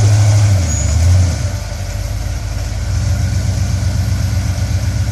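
Off-road 4x4's engine running at low speed; its note drops and eases off about a second and a half in, then settles to a steady idle.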